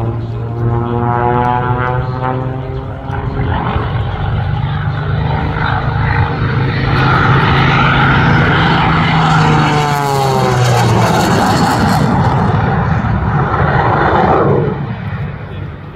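Jet Waco biplane in aerobatic flight, its Pratt & Whitney R-985 nine-cylinder radial engine and propeller droning together with a General Electric CJ610 (J85) jet engine. The engine tone slides down in pitch twice as the plane passes. A loud rushing noise builds about halfway through, is at its sharpest for a couple of seconds, and falls away near the end.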